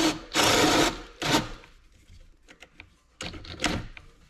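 Cordless drill driving a paddle bit into plywood in short trigger bursts, the bit chewing through the wood each time, with small clicks and knocks between the bursts.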